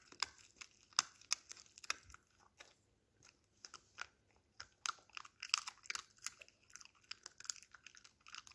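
Small dog chewing a dried beef stick chew, with irregular wet crunches and bites and a short lull about three seconds in.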